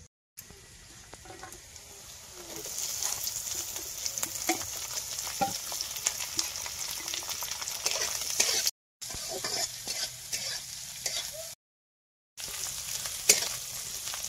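Small dried fish sizzling in hot oil in a black iron wok, stirred with a flat spatula that scrapes and clicks against the pan. The sizzle grows loud about two and a half seconds in, and the sound cuts out briefly twice.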